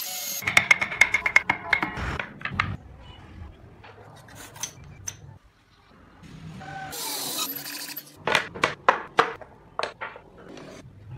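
Cordless drill boring into a block of wood, a rapid rattling run in the first two seconds, followed by scattered clicks and knocks of small wooden parts being handled and fitted together.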